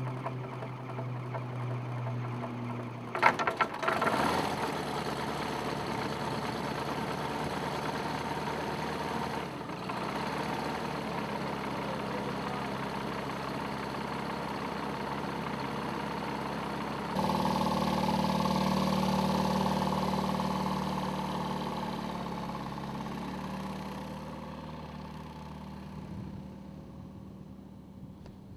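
Piston engine of a Storch-type high-wing light aircraft, with a loud clattering burst about three seconds in, then running steadily with the propeller turning. It jumps louder about two-thirds of the way through, then slowly fades away.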